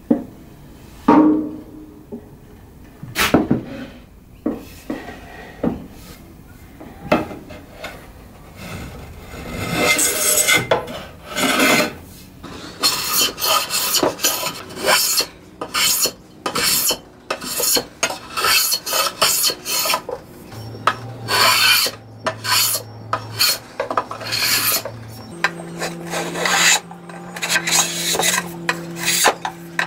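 A small hand block plane shaving along the edge of a wooden tabletop in quick repeated rasping strokes, taking off the old dark stain. A few separate knocks of the wood being handled come first.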